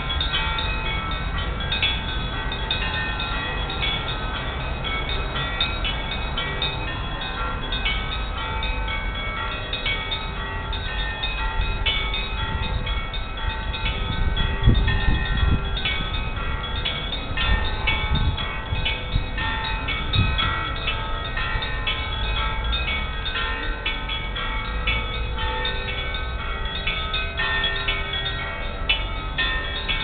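Orthodox church bells ringing a peal: many bells struck in a fast, irregular rhythm, their tones ringing on and overlapping.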